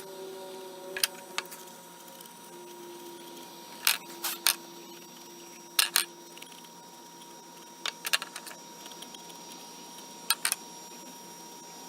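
Sharp clicks and clacks of small hard objects being handled and set down, mostly in pairs, every couple of seconds, over a faint steady hum.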